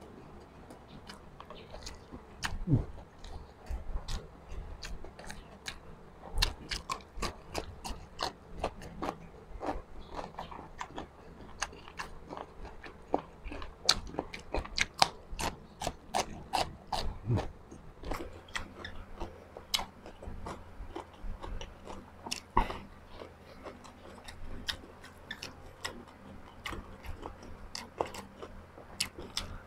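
A person chewing and crunching food close to the microphone: many sharp, irregular crackling clicks from crisp food breaking between the teeth, with softer chewing between them.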